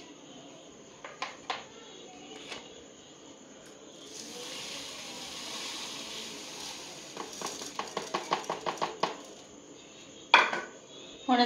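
A spoon clinking against a sugar container and a blender jug as sugar is spooned in for mango juice, with a soft hiss of sugar pouring in the middle and a quick run of taps after it. One louder knock comes near the end.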